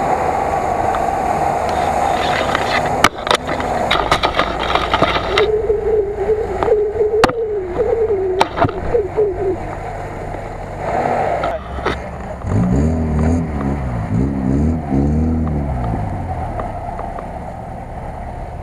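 Lada Niva off-road vehicles driving over rough grassy ground, engines running, with a few sharp knocks about three to five seconds in and engine pitch rising and falling repeatedly in the second half.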